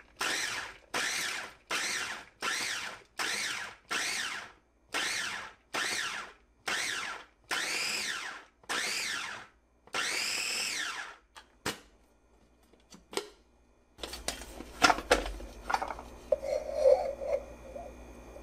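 KitchenAid 5-cup food chopper's motor pulsed about fifteen times, chopping whole garlic cloves: each pulse is a short whine that rises and falls in pitch, about one and a half a second, the last few held a little longer. After a pause there are plastic clicks and knocks as the lid and blade are taken off.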